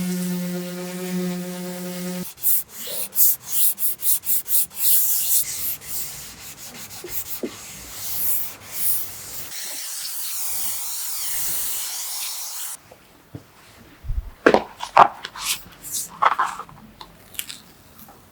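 A machine hum with a steady pitch that stops about two seconds in, followed by hand sanding: quick separate strokes at first, then a steadier scraping rub that cuts off abruptly. A few sharp knocks follow near the end.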